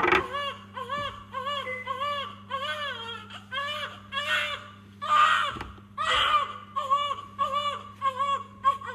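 Newborn baby crying in short, rhythmic cries, about two a second, a few of them louder about halfway through, over a low steady hum.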